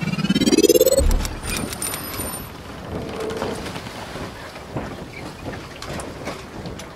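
Logo intro sound effect: a rising whoosh that climbs in pitch and ends in a deep boom about a second in, followed by a steady rushing noise scattered with clicks.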